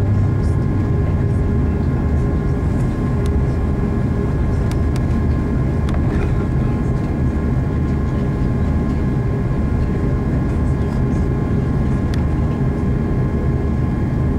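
Airbus A340-600's four Rolls-Royce Trent 500 jet engines heard from inside the passenger cabin: a steady low rumble with several steady engine tones held over it.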